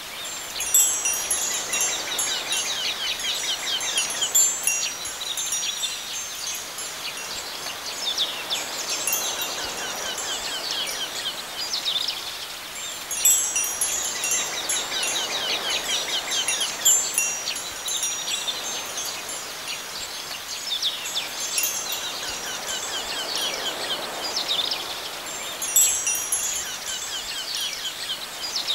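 Wind chimes tinkling in clusters every few seconds over a soft steady hiss.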